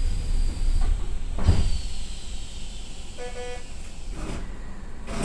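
Hokuso 7500-series commuter train stopped at a station: a short two-tone door chime sounds twice about three seconds in, and the doors shut with a thud near the end, ahead of departure. A softer thump comes about a second and a half in.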